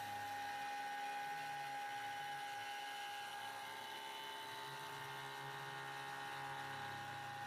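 Small CNC milling machine's spindle running with a steady, high whine while a thread mill orbits inside a brass ring, cutting an internal thread. A low hum underneath fades about a second in and comes back past the middle.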